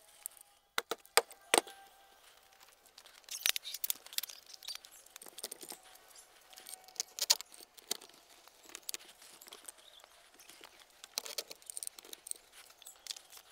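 Metal Thule van ladder being set up and adjusted against a van's back door: scattered sharp clicks and light metallic rattles, coming in a few clusters.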